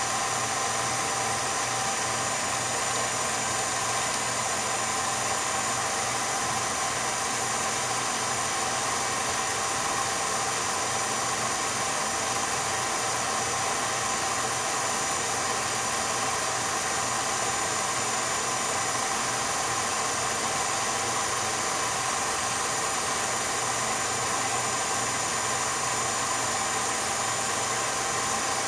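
8mm film projector running: a steady motor hum and fan hiss with a few constant tones, unchanging throughout.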